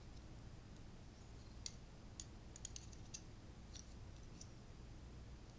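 Faint small metal clicks, scattered and irregular, of a knife tip prying the trigger connector out of a Glock 17's trigger housing.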